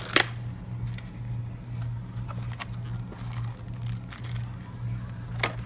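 Handling noise from unpacking a small accessory: a sharp click just after the start, a few faint clicks and rustles, and another click near the end, over a steady low hum.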